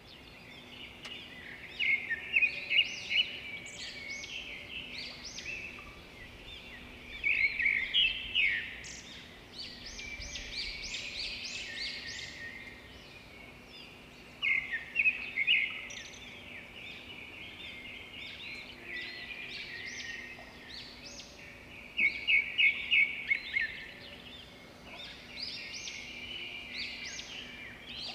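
Birds chirping and singing in a busy chorus, with loud runs of rapid chirps every few seconds, over a faint steady hum.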